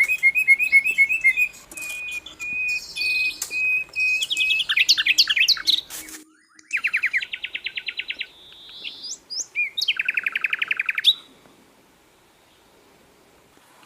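Sikatan londo, a flycatcher kept as a songbird, singing: strings of quick high chirps and fast rattling trills. The song stops about eleven seconds in, leaving the rest nearly quiet.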